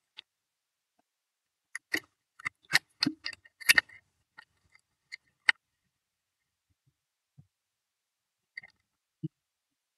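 A run of short, sharp clicks and taps, about a dozen over three or four seconds, followed by a few faint ticks and a soft knock near the end.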